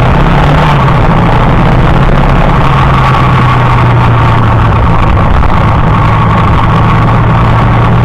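Motorcycle engine running at low speed, heard close up from down at the leg protector; its pitch eases down in the first second, then holds steady over a constant rush of wind and road noise.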